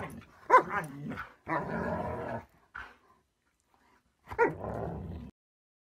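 Dogs vocalising while play-fighting, with growling and grumbling broken by a loud sharp bark about half a second in and another just after four seconds. The sound stops abruptly about a second before the end.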